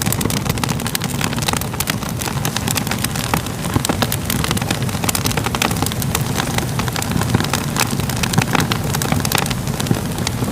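Crackling fire: a steady low rumble of flames with frequent sharp pops and crackles scattered irregularly throughout.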